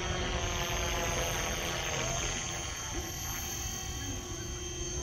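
Align T-Rex 450 SE V2 electric RC helicopter flying at a distance: the steady whine of its motor and rotors, a little louder in the first two seconds, over a low wind rumble on the microphone.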